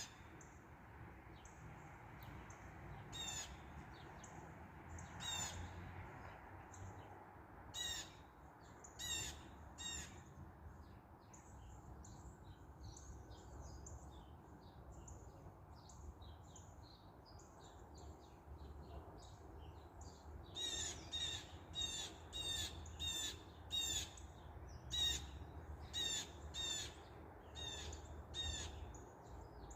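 Birds calling outdoors: short, harsh calls repeated now and then, with softer chirping in the middle, then a quicker run of calls at about two a second from about two-thirds of the way in. A low wind rumble sits underneath.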